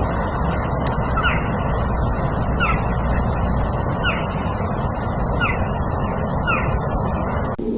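Steady rushing outdoor background noise, with a bird giving short, downward-gliding calls about every second and a half. The sound cuts off abruptly near the end.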